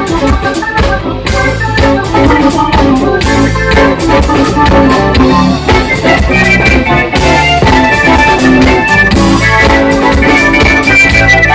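Blues band playing live, an instrumental passage with no singing: drum kit keeping a steady beat under guitar, with long held organ chords coming in about halfway through.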